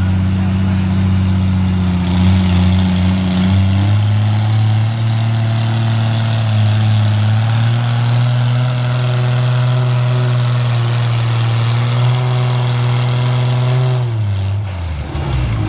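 Engine of a 5,500 lb limited-class pulling tractor under load, dragging a weight-transfer sled: a loud, steady engine note that steps up slightly about four seconds in. Near the end the note drops away as the tractor stops and the throttle comes off.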